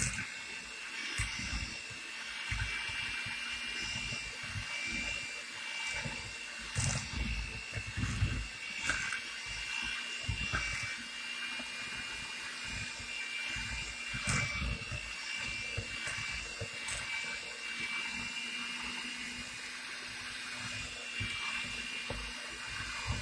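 Electric hand mixer running steadily with a constant high whine. Its beaters churn and knock irregularly against a plastic bowl as eggs are beaten one by one into the batter.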